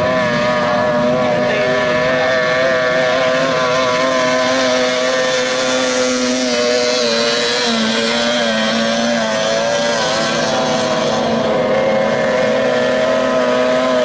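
Several outboard-powered 30 hp tunnel racing boats running flat out, their engine notes overlapping in a steady drone with slight wavers and dips in pitch as the boats pass.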